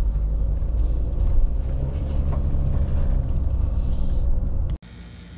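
Motorhome driving on a road, a steady low engine and tyre rumble heard from inside the cab; it cuts off suddenly near the end.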